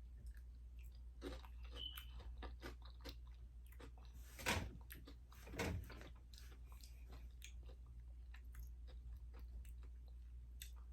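Close-up chewing of a dark-chocolate truffle cookie with small crunchy cookie bits inside, with soft crunches and two louder bites about four and a half and five and a half seconds in.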